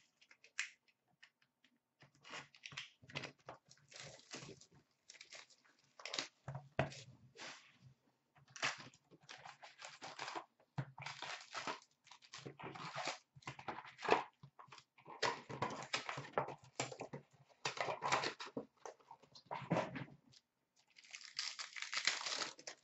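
Cardboard hobby box of Upper Deck hockey cards being opened by hand: the lid and box sliding and scraping, and foil packs rustling as they are lifted out. Near the end, a longer crinkling tear as a foil pack is ripped open.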